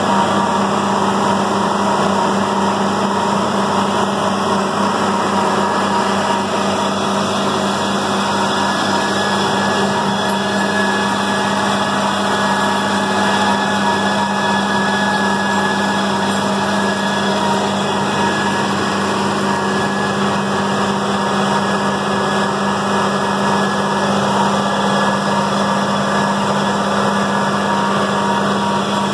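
John Deere tractor engine running steadily at working speed, driving a New Holland 1412 disc mower-conditioner as it cuts standing hay. A steady hum sits under the engine the whole time.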